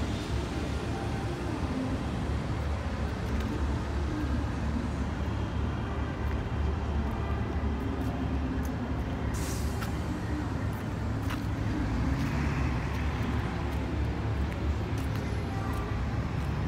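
Steady city traffic noise with a low rumble, and a short hiss about nine seconds in.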